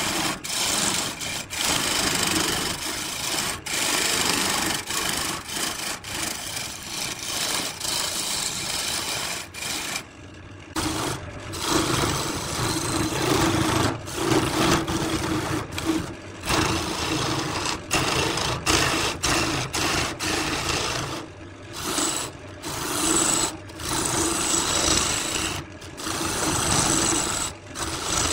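Wood lathe spinning a vase blank while a hand-held turning tool cuts into the wood: a dry scraping hiss, broken again and again by short gaps as the tool lifts off, over a steady hum from the spinning lathe.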